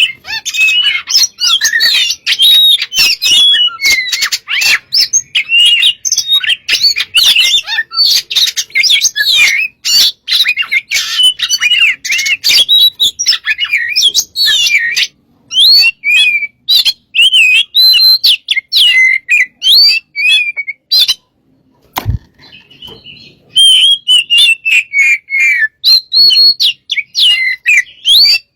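Oriental magpie-robin (kacer) singing loudly in full, non-stop song: a rapid run of varied whistles, warbles and sharp clicks. About three-quarters of the way through there is a short pause, broken by one sharp click. This is the vigorous 'gacor' song that is played to provoke other magpie-robins into singing.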